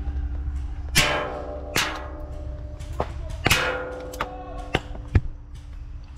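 Airsoft BBs striking metal cover: about seven sharp knocks at uneven intervals, each with a short metallic ring.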